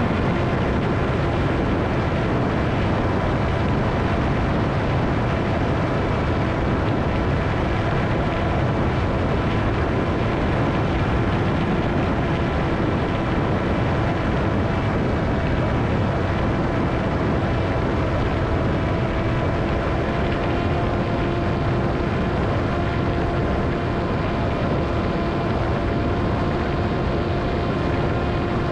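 Ritewing Hardcore 38 flying wing in flight: its electric motor and propeller run with a steady whine over a constant rush of air.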